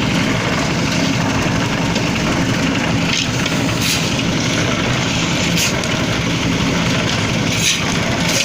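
Concrete mixer machine's engine running steadily under load, with a few short clicks over the top.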